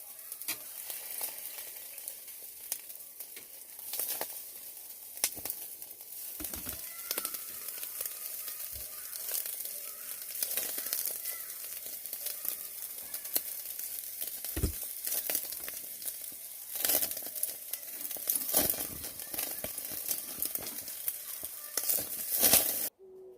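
Food sizzling and crackling as it fries in a pan, with scattered small clicks and a few low knocks. It cuts off abruptly shortly before the end.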